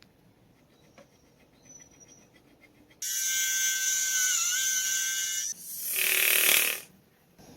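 Small motorised rotary tool running, whining steadily for about two and a half seconds with a brief dip in pitch as it takes load. A harsher hissing grind follows for just over a second, then it stops.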